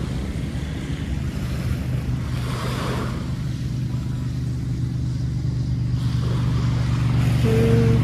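Small waves washing onto a sandy shore, swelling twice, over a steady low engine hum that grows louder near the end.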